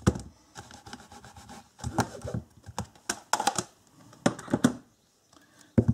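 Plastic stamping tools being handled: an acrylic stamp block and ink pad cases clicking and tapping, in irregular little groups of sharp clicks.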